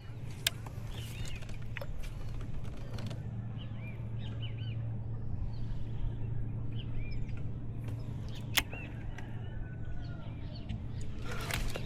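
Small birds chirping in short, repeated calls over a steady low hum, with two sharp clicks, one near the start and one about two-thirds of the way through.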